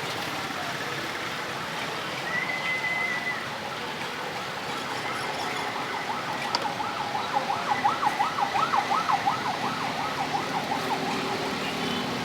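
A siren passing in street traffic, its pitch wavering quickly up and down about four times a second, growing louder toward the middle and then fading, over steady street noise. A short steady beep sounds about two seconds in.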